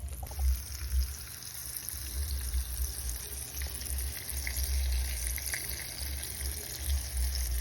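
Flour-and-breadcrumb-coated pork chops frying in hot oil in a skillet: a steady sizzle that jumps up at the very start and holds, over a low uneven rumble.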